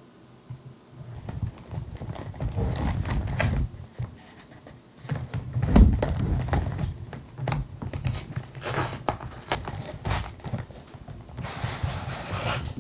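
Long cardboard box being handled and opened on a table: irregular scrapes, taps and clicks, a thump about six seconds in, and a rustling scrape near the end.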